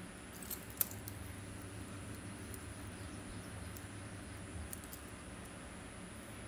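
Faint steady background hum and hiss with a few light ticks, and one sharper click a little under a second in.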